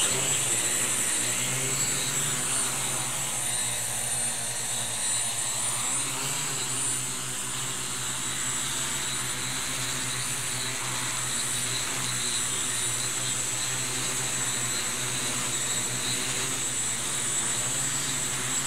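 Skywalker X8 quadplane's four electric quad motors with 15-inch props running at hover power after lifting off: a steady, many-toned propeller drone with a high motor whine above it, wavering slightly in pitch.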